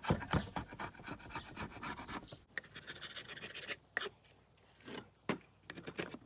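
A steel hand chisel scraping and paring the rough edges of reclaimed wooden boards in quick repeated strokes. The strokes thin out to a few separate scrapes after about two and a half seconds.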